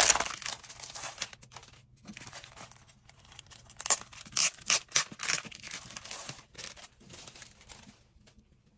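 Clear plastic packaging crinkling and rustling as it is peeled open and a clear plastic planner cover is pulled out. There is a cluster of sharper crinkles from about four to six seconds in, then only faint handling.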